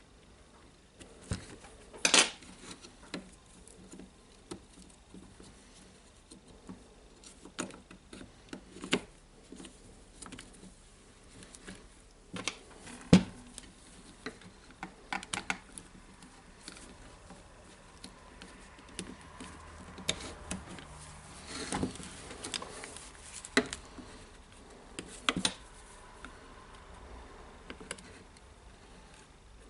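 Irregular clicks, taps and knocks of a DeWalt DCD995 drill's parts being handled and fitted together during reassembly, with sharper knocks about 2 and 13 seconds in.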